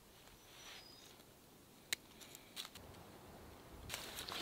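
Faint handling sounds of a stick grill being lashed together: one sharp click about two seconds in, a few lighter ticks after it, then rustling with small clicks near the end.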